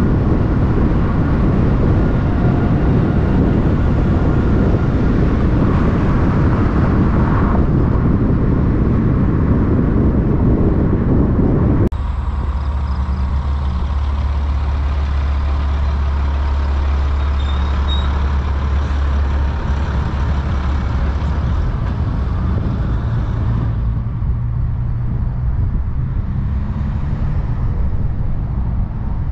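Semi-truck diesel engines running loud through big exhaust pipes. A dense, loud stretch breaks off abruptly about twelve seconds in and gives way to a steady, lower drone.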